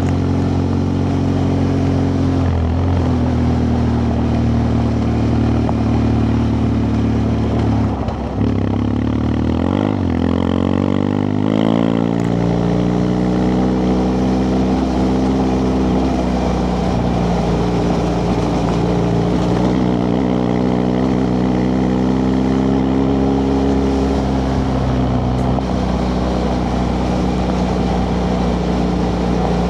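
BMW F 800 GS parallel-twin engine running under way through its original exhaust. The engine note drops briefly about eight seconds in, the revs climb over the next few seconds, and then it settles into a steady pull.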